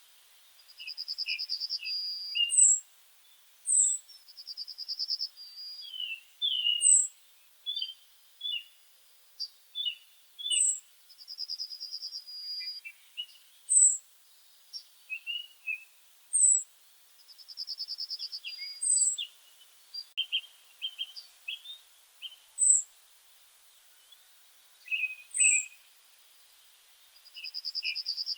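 Songbirds singing: a mix of short high whistled notes, quick chirps, and a fast trill about a second long that comes back several times.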